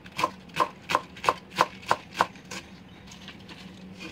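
Kitchen knife chopping bok choy on a wooden cutting board: about eight quick, even chops, roughly three a second, which then fade to light, faint cuts after about two and a half seconds.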